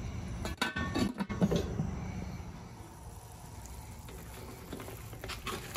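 Aluminium lid set onto a large aluminium cooking pot: a few metallic clanks and knocks about half a second to a second and a half in. A steady low rumble from the burner's low fire sits under it. Near the end a spoon starts scraping and stirring in the pot.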